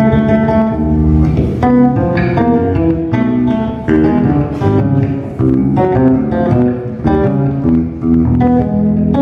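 Two electric bass guitars playing a duet through bass amplifiers, a run of plucked notes changing every fraction of a second.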